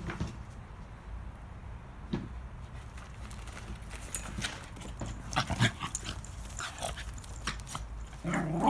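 Scattered light knocks and taps of a dog moving about on a trampoline and jumping down off it, then a dog vocalising briefly near the end.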